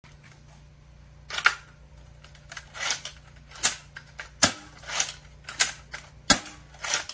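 3D-printed lever-action half-dart blaster being worked: about eight sharp plastic clacks and snaps as its lever action is cycled, coming roughly one or two a second after the first second.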